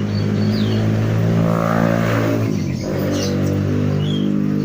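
An engine running close by: a steady low hum that drops out and changes pitch briefly about two and a half seconds in, then carries on. Small birds chirp faintly.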